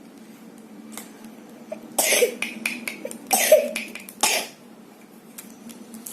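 A child with a cough coughing three times, short harsh coughs about a second apart.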